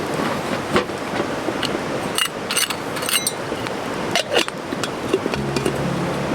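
Steady hiss with scattered sharp crackles and pops from a campfire cookout. Soft music comes in near the end.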